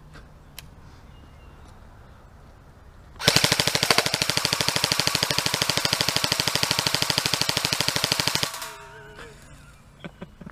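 Airsoft rifle firing a long full-auto burst: a rapid, even stream of shots starting about three seconds in, running about five seconds, then stopping abruptly.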